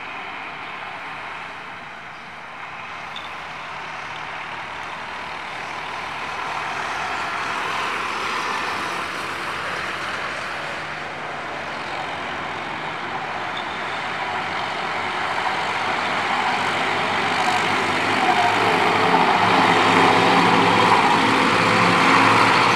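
Heavy road traffic: Tata trucks and other vehicles passing with a steady rush of engine and tyre noise that grows louder. Over the last several seconds a tractor's diesel engine runs close by, its low engine note rising.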